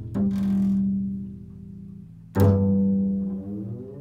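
Upright double bass played pizzicato: two low plucked notes, one just after the start and one about two and a half seconds in, each ringing and fading. The second note slides up in pitch as it dies away.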